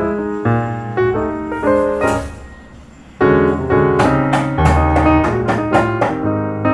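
Background music led by piano, with a short lull a little before halfway, then fuller again.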